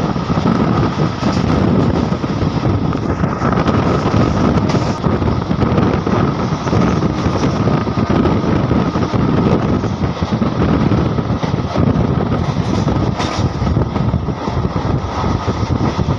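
MEMU electric train running at speed, heard from an open door of the coach: a steady rumble of wheels on the track mixed with wind on the microphone.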